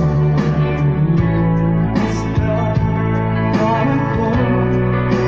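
Live band music played loud over a PA, with a steady bass line and a singer's voice.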